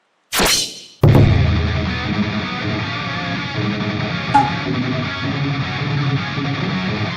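Rock music with guitar and drums starting about a second in, just after a short rushing sound.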